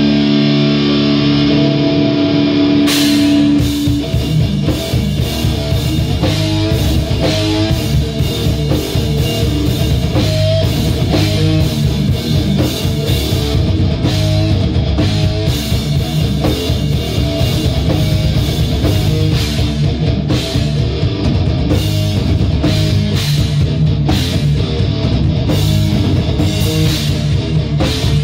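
A heavy metal band playing live, with distorted electric guitar, bass and drums. The guitar and bass hold chords alone at first, then the drum kit comes in about three seconds in with fast, busy drumming and cymbals under the riffing.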